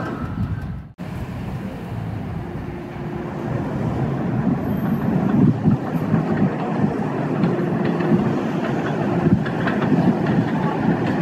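R68 subway train running along the track: a steady rumble of wheels on rail, with a few sharp clicks near the end. The sound breaks off abruptly for a moment about a second in.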